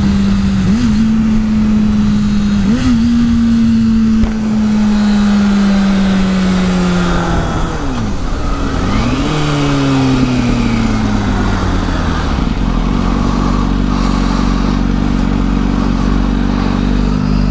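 Kawasaki Ninja ZX-6R inline-four sport-bike engine slowing down through the gears, with quick rev blips on downshifts about one and three seconds in and again around nine seconds, and the pitch falling between them. From about twelve seconds a steadier, lower engine note takes over.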